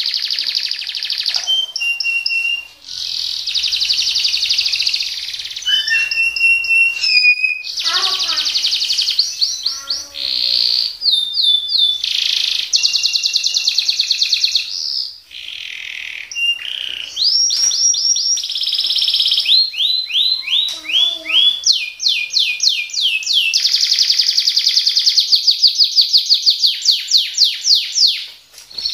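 Domestic canary singing a long, fast song: rolling trills and rapid runs of repeated 'shot' notes, many of them quick downward sweeps several to the second, with only brief pauses.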